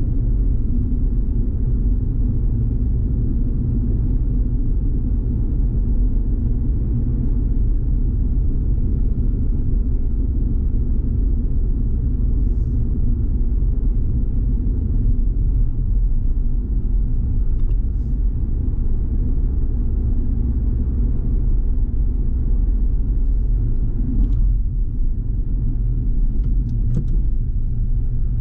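A car driving in traffic, heard from inside the cabin: a steady low rumble of engine and road noise, with a few faint ticks.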